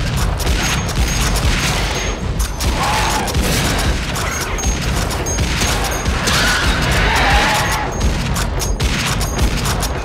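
Film battle sound: dense, rapid automatic rifle fire over heavy booms and a low rumble, with a few shrill rising-and-falling cries cutting through about three and seven seconds in.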